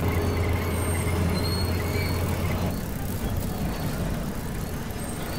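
Diesel crane engine sound effect running with a steady low drone; about three seconds in the engine note changes and drops.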